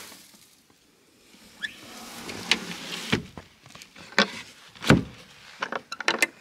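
Hinged wooden nesting box swung shut against a wooden chicken coop, landing with dull wooden knocks, the loudest a little before the end. A quick run of small metal clicks follows near the end as the hook latch is fastened.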